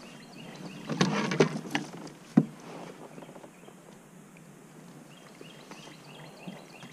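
Landing net with a bass in it lifted out of the water into a kayak: a burst of splashing and net rustling about a second in, a single sharp knock a moment later, then quieter handling as the fish is held in the net.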